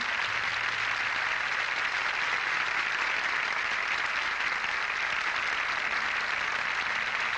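Audience applause, dense and steady, as the last note of the music fades out in the first second.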